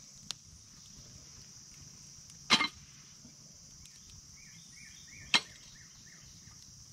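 Two sharp metallic knocks, about three seconds apart, as a cast-iron pie iron is set down and shifted on a metal campfire grill grate. Crickets chirr steadily underneath.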